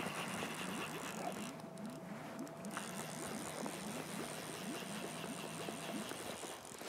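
Fly reel being cranked to take in line on a hooked Atlantic salmon, a rhythmic whirring of about three turns a second, over a steady low hum.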